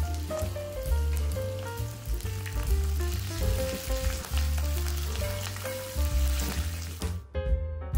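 Green and dried red chillies, curry leaves and spices sizzling in hot oil in a cast-iron kadai as they are stirred. The sizzle stops about seven seconds in. Instrumental background music with a strong bass line plays throughout.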